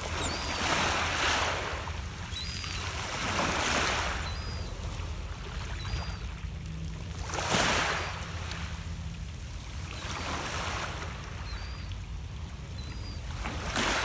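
Small lake waves washing in on a pebble beach, swelling and fading about four times, with faint high chirps from birds.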